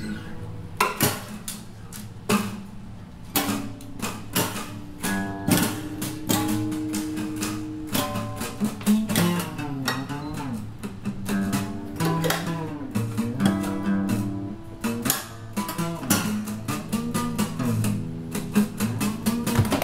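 Acoustic guitar played fingerstyle in an experimental way: a constant run of sharply plucked notes and ringing chords, with some notes bending up and down in pitch.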